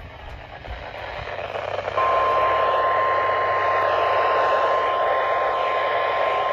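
Radio static that grows louder, then about two seconds in a steady, single-pitched emergency alert tone starts and holds over the hiss: the weather radio's warning alarm tone that opens a new alert.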